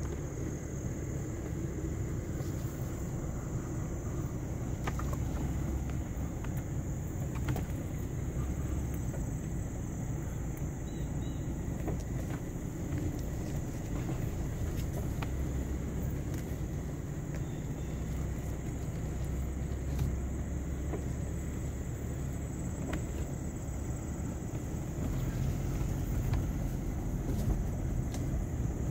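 Car driving slowly, its engine and tyres making a steady low rumble heard from inside the cabin, with a faint steady high-pitched hum above it.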